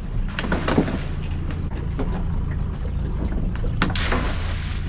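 Small boat's outboard motor running at a steady idle, with a few short clatters under a second in and a brief rush of hissing noise near the end.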